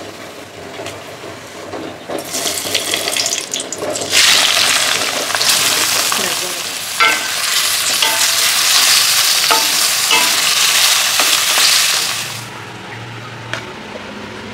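Food frying in hot oil in a pan, sizzling and stirred with a utensil that clicks against the pan now and then. The sizzle starts softly about two seconds in, turns loud about four seconds in, and stops suddenly near the end.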